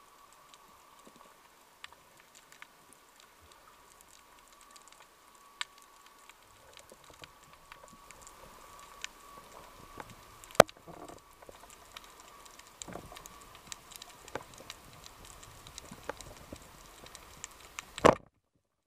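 Underwater ambience picked up by a diving camera: scattered sharp clicks and crackles over a faint steady hum, with one loud click about ten seconds in. Near the end a loud rushing burst cuts off abruptly.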